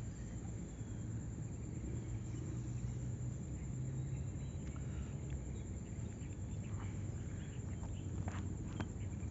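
Steady low outdoor rumble, with a few soft scuffs and rustles in the last few seconds as a person shifts his body and legs on the asphalt.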